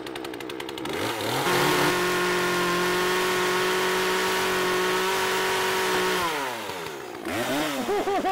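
Chainsaw spinning up about a second in and running at a steady full speed for about five seconds while it is lowered onto the tops of glass soda bottles to knock their caps off. It then winds down, and a few short revs follow near the end.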